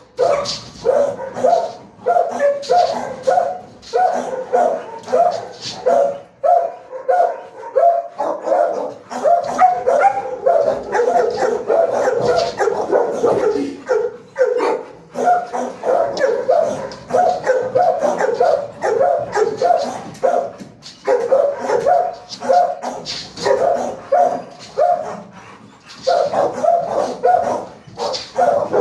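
Shelter dogs barking in rapid, steady runs of barks, with a few short pauses.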